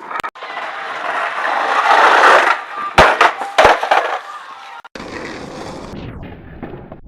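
Skateboard wheels rolling on pavement, growing louder, then two sharp clacks of the board hitting the ground about half a second apart. After that, a steadier, lower rolling rumble.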